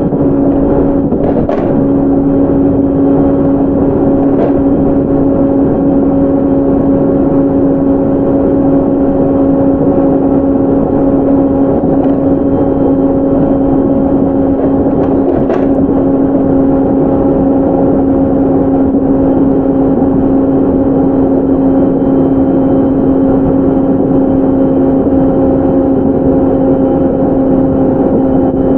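On-board running sound of a JR 701-series electric train car with Mitsubishi IGBT drive, travelling at speed: a steady rumble of wheels on rail with a steady hum from the drive, and a few sharp clicks from the track.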